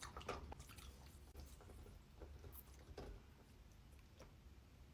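Faint, irregular chewing: soft scattered clicks and crackles of mouth or teeth working on food.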